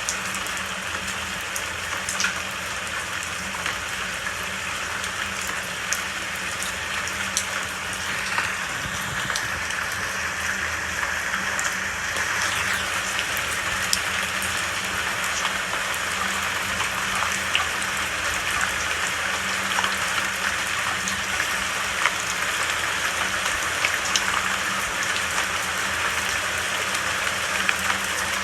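Steady rain falling, with the close patter of individual drops scattered through it.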